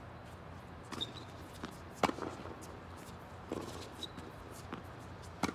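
Tennis ball struck by racquets and bouncing on a hard court during a rally: several sharp pops spaced about a second apart, the loudest about two seconds in and near the end.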